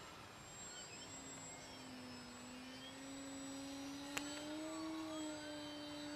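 Distant electric motor and propeller of a Carbon-Z Yak 54 3X radio-controlled airplane: a faint steady hum that comes in about a second in and rises slightly in pitch around the middle. A single sharp click about four seconds in.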